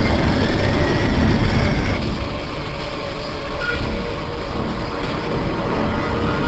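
A steady, heavy engine rumble that comes in abruptly and loud at the start. It is a deep, dense noise with a faint high tone sliding down in the first couple of seconds.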